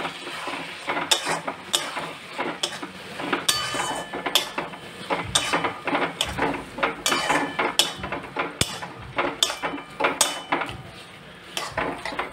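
Spatula scraping and knocking against a metal kadai while stirring a wet onion-tomato masala, in quick irregular strokes, the pan ringing briefly after some of the knocks.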